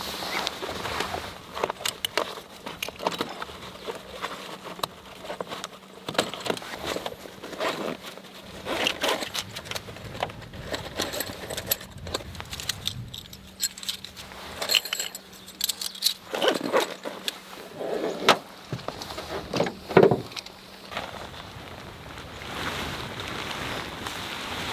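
Irregular clinks, scrapes and knocks of objects being handled, with a few louder knocks a little past the middle.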